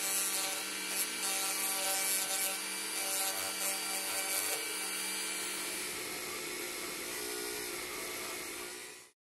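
Handheld rotary tool running at high speed with a sanding drum pressed against small steel pump parts, a nut and a washer: a steady motor whine under gritty sanding.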